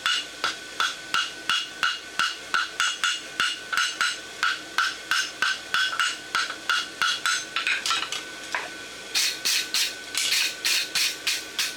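Hammer blows on hot steel over an anvil, about three a second, each with a metallic ring: a forge weld being hammered to bring the fluxed scarf joint of a steel barshoe together. The blows pause briefly about eight seconds in, then resume faster.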